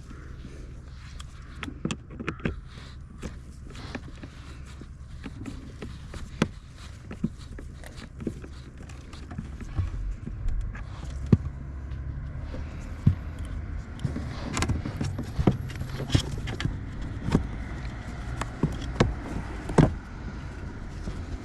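Scattered clicks and knocks of hands and tools working on a car's interior trim and cabin filter housing, over a steady low hum. The knocks come thicker and louder in the second half.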